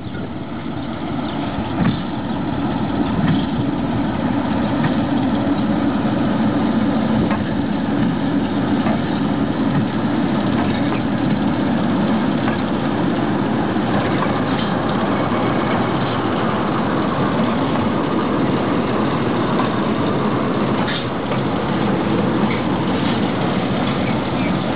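Sulzer-engined Romanian Class 62 diesel-electric locomotive running as it hauls a grain train close past. The engine sound builds over the first few seconds, then holds steady, with a few faint clicks.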